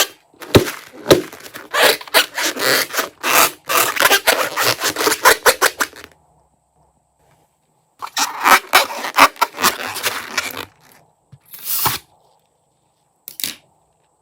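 Crunchy slime being squeezed and pressed by hand, giving fast runs of crackling, popping clicks. There are two long runs with a pause between them, then two short bursts near the end.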